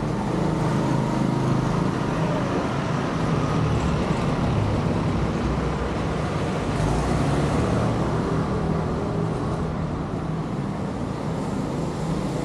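Steady road traffic noise from vehicles passing on a city street.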